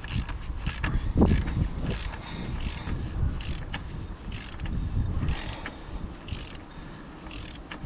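Ratchet of a torque wrench clicking in short rasps, about two a second, with each back-stroke as the oil filter housing cap of an Audi S3 2.0 TFSI engine is screwed down toward its 20–25 N·m torque.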